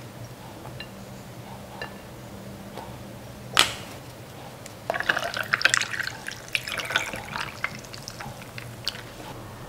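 Juice poured from a carton over ice cubes in a glass: a splashing pour full of small crackles that lasts about three seconds. A single sharp knock comes just before it.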